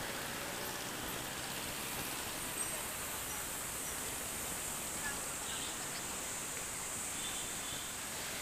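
Steady street noise heard from a bicycle riding beside busy traffic: an even hiss of passing vehicles and wind, with no distinct events.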